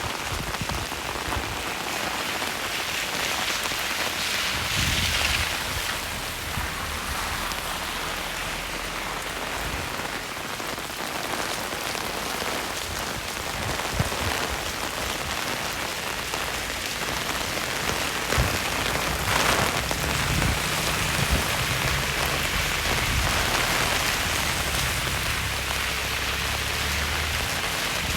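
Steady rain falling on a wet street, with a low rumble coming and going underneath.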